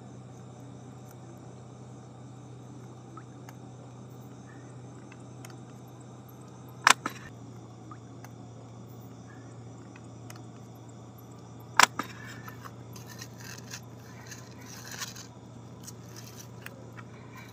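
Steady low drone of a passing boat's engine, under the rustle and scrape of nylon gill net being handled while fish are picked out. Two sharp knocks, about 7 and 12 seconds in, are the loudest sounds.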